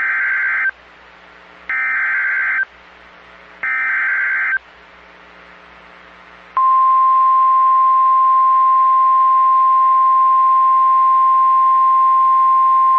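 Emergency Alert System data header: three short screechy SAME data bursts about a second apart. About six and a half seconds in, the single steady NOAA Weather Radio 1050 Hz warning alarm tone starts and holds. Together they mark the start of a new severe thunderstorm warning broadcast.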